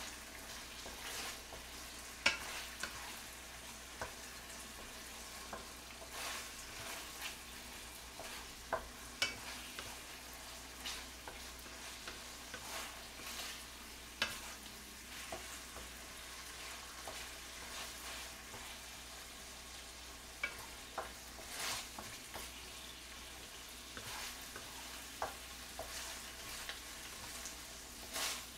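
Oil tteokbokki (rice cakes) sizzling in oil in a frying pan while a wooden spatula stirs them. Frequent short scrapes and taps of the spatula on the pan break through the steady sizzle.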